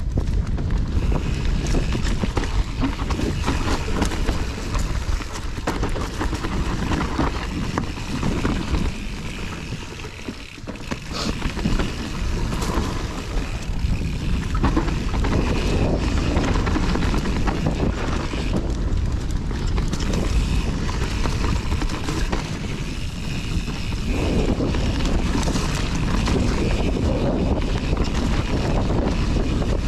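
Wind buffeting the microphone of a chest-mounted action camera on a mountain bike riding a dirt trail, with tyres rolling and the bike rattling and knocking over rough ground; the noise drops briefly about ten seconds in.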